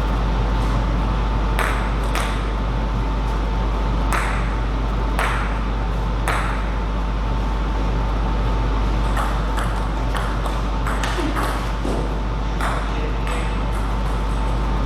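Table tennis ball clicking off bats and the table in rallies: a few spaced hits in the first half, then a quicker run of hits in the second half. A steady low electrical hum and a faint high whine run underneath.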